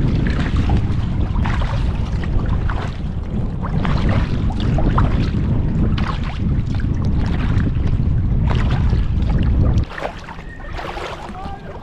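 Strong wind buffeting the microphone, with kayak paddle strokes splashing in the water. The wind rumble cuts out suddenly about ten seconds in, leaving quieter water sounds.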